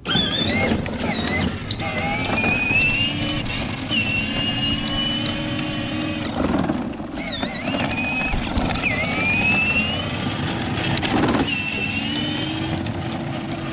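Kids' ride-on car's single 6-volt, 10,000 rpm motor and gearbox, overvolted on a 12-volt supply, whining as the car drives. The whine cuts in and climbs in pitch several times, with no soft-start control to ease the motor up to speed.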